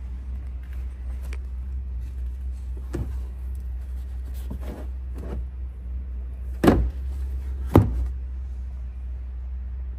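Cargo-area floor panel of a Toyota RAV4 being handled: a few light knocks as it is moved over the spare tyre, then two sharp thuds about a second apart as it is set back down, over a steady low hum.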